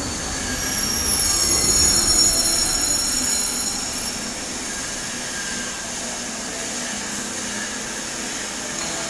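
Shielded metal arc welding with an E7018 stick electrode: the arc crackles and hisses steadily. A thin high squeal rises over it for a few seconds about a second in.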